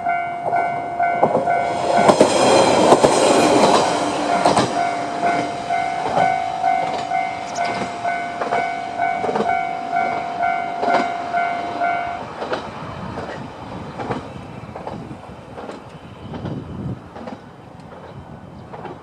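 Level-crossing warning alarm ringing as a YR-880 type diesel railcar passes. A loud rush of the train comes about two seconds in, then its wheels clack over the rail joints as it draws away and fades. The alarm stops about twelve seconds in.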